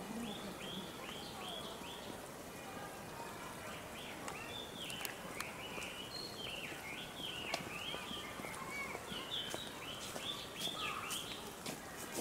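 Small birds chirping and twittering: many short, overlapping high calls that rise and fall, dense through the middle and end, over a few faint clicks.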